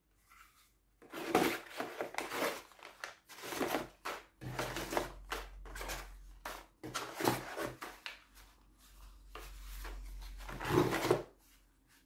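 Cardboard toothbrush boxes and paper packets rustling, sliding and knocking against each other as hands rummage through a cardboard shipping box. The handling begins about a second in, comes in a series of irregular scuffs, and stops just before the end.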